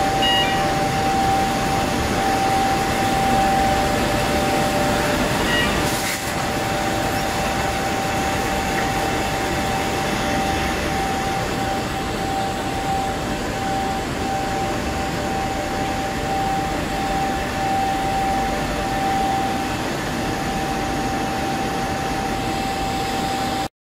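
A COMEXI FJ 2108 CNC eight-colour central-impression flexo printing press running in production: a steady mechanical hum with a constant high whine over it. It cuts off suddenly just before the end.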